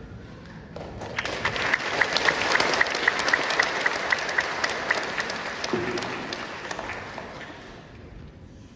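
A congregation applauding: the applause swells about a second in and fades away near the end, with one clapper close by, clapping sharply about three times a second.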